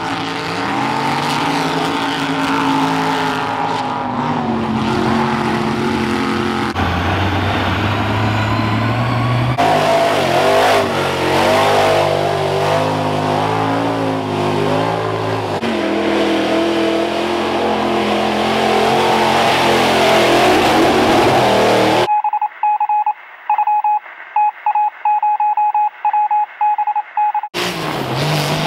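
Mud-bog trucks' engines revving hard, their pitch climbing and falling, in several cut-together stretches. Near the end come a few seconds of muffled audio with an on-off beeping tone.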